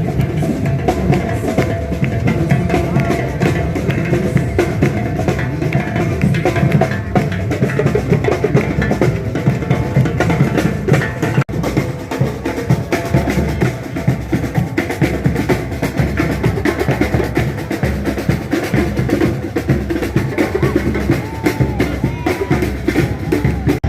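Music carried by a busy, steady drum beat of bass drum and snare.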